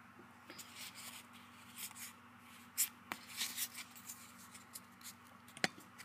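Pokémon trading cards being handled and slid against each other: faint scratchy rustling with a few sharp clicks, the sharpest about three seconds in and shortly before the end.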